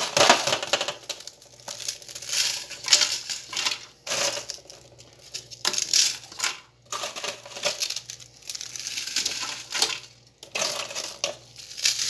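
Chunks of dry bread dropped by hand into a Walita Delta Eletrônico's plastic blender jar, landing in uneven clattering, rustling bursts as the jar fills.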